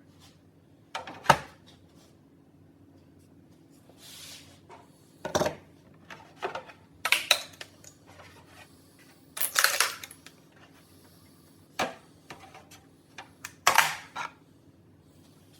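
Hard objects being handled: about ten sharp, irregular clicks and clatters, the loudest about a second in.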